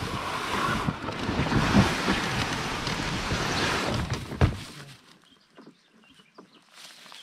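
Loaded canoe's hull scraping and rustling through sand and grass as it is dragged up onto the bank. The noise stops with a bump just over four seconds in.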